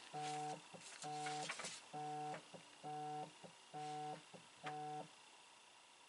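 Telephone ringing for an incoming call that is left unanswered: a short electronic beep tone repeats about once a second, six times, then stops about five seconds in.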